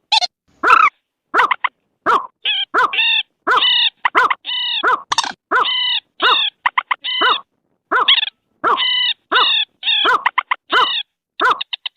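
Bird-lure recording of rice-field bird calls, mandar rail calls among them: short, loud, nasal calls repeated about twice a second, turning into a fast rattling series near the end. The gaps between calls are dead silent, as in an edited, looped lure track.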